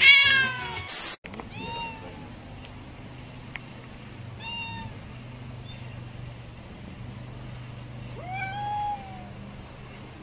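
Cats meowing: a loud meow falling in pitch right at the start, a brief noise and an abrupt break, then a few short meows and a longer drawn-out meow near the end.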